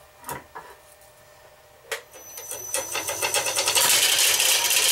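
A couple of light knocks, then a sharp click about two seconds in as the wood lathe starts. A rising machine whine follows, and near the end a loud steady hiss as the Veritas dowel maker shaves the spinning blank into a 3/8-inch dowel.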